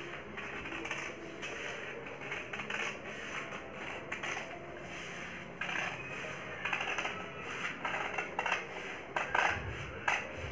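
Scissors cutting through newspaper: a run of crisp snips with paper rustling. The snips come sharper and more distinct in the second half.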